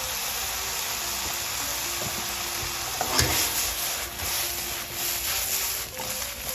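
Mixed vegetables sizzling steadily in hot oil and oyster sauce in a pan on high heat, with a spatula stirring them and a short scrape or knock against the pan about three seconds in.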